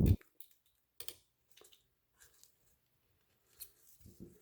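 A dull knock, then scattered light clicks and taps of small metal tools and pistol parts being handled while pins are worked out of a CZ P10 F pistol frame.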